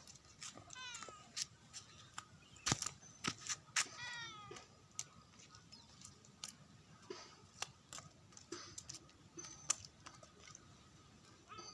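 A cat meowing twice, short calls about three seconds apart, amid scattered sharp clicks and knocks.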